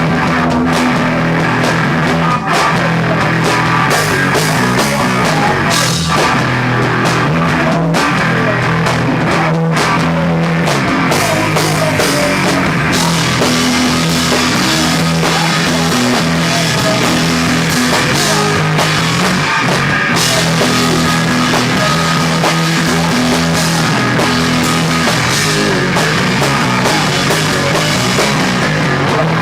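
Rock band playing live at full volume: electric guitar over a drum kit.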